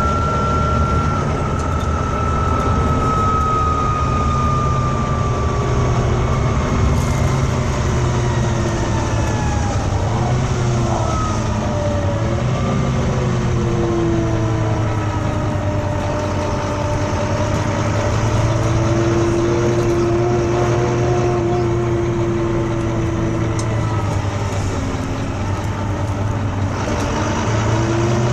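Volvo B9TL double-decker bus's six-cylinder diesel engine running, with a strange wailing whine over it that slides slowly up and down in pitch, falling in the first few seconds and then wavering and rising and falling again.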